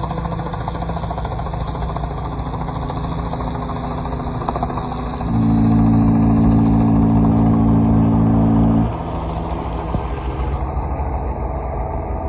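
Large ship's horn sounding one long, loud blast of about three and a half seconds, starting about five seconds in, over a steady low drone.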